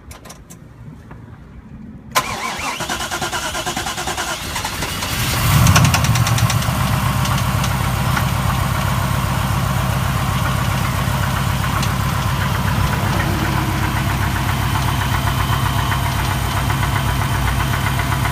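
1996 Camaro Z28's LT1 V8 being cranked by the starter for about three seconds, catching with a loud rev flare around six seconds in, then idling steadily through long-tube headers and an off-road Y-pipe.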